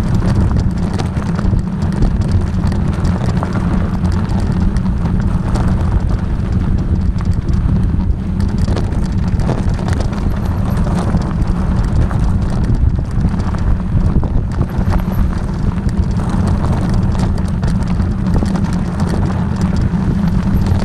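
A vehicle running over rough ground: a steady low rumble with constant rattling and knocking.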